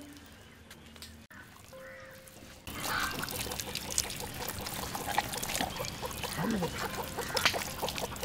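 Hands squishing and slapping a wet masala paste into whole cleaned ducks in a brass pot: a busy run of wet squelches and small clicks that starts about a third of the way in.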